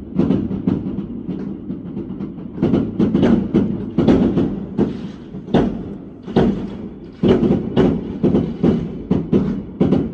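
Fireworks going off: a rapid, irregular run of bangs and crackles, several a second, over a continuous low rumble of further explosions.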